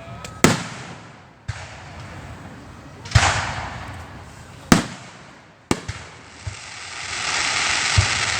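Fireworks exploding: a string of sharp bangs a second or two apart, each trailing off, with a hiss building toward the end.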